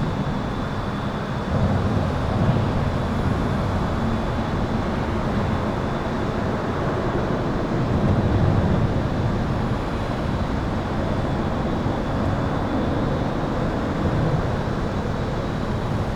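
Highway traffic heard from under an overpass: a steady rumble of tyres and engines, swelling louder about two seconds in and again about eight seconds in as vehicles pass. A thin, steady high-pitched tone sits above the rumble.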